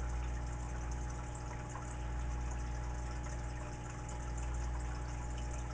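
Steady hiss of static from an RCI Ranger CB radio's receiver on an open channel between transmissions, with a low steady hum underneath.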